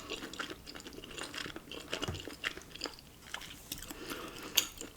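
A person chewing a mouthful of cheesy ramen and chewy rice cakes close to the microphone: irregular soft wet clicks and smacks, with a few sharper clicks near the end.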